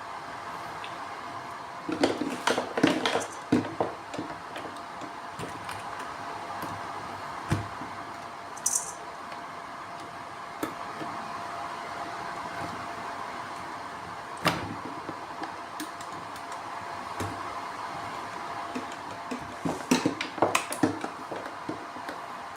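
A steady mechanical hum with a faint constant tone, with small clicks and knocks of handling in short clusters: one around two to four seconds in, single knocks in between, and another cluster near the end.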